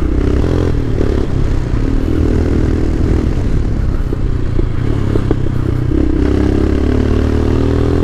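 Royal Enfield Himalayan's carbureted 411 cc single-cylinder engine running under way, its note easing off mid-way and then rising steadily in pitch near the end as the bike accelerates.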